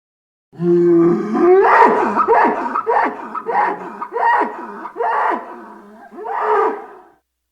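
Ankylosaurus sound effect: an animal-like call made of about seven pitched cries in a row, each bending up and then down in pitch. It starts about half a second in and stops a little before the end.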